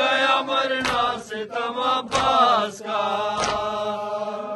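Voices chanting a nauha, a Shia mourning lament, in long held lines. Three heavy slaps of matam chest-beating come at an even beat about every second and a quarter.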